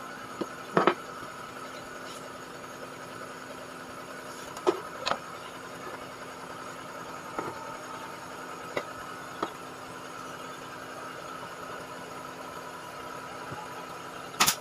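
Scattered wooden knocks and taps as timber frame pieces are handled, over a steady mechanical hum. Near the end comes one sharp crack from a pneumatic nail gun firing.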